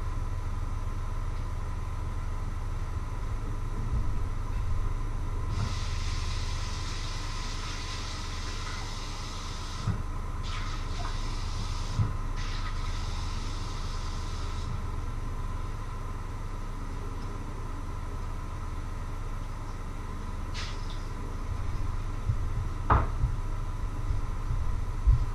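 Kitchen cooking noise: a steady low hum, with a stretch of hissing of about nine seconds that starts about five seconds in, and a few sharp knocks or clinks.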